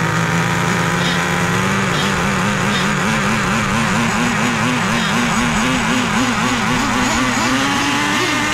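Several small glow-fuel nitro RC engines running at once, loud and rich. One engine's note holds steady for about two seconds, then wobbles up and down and climbs gradually higher.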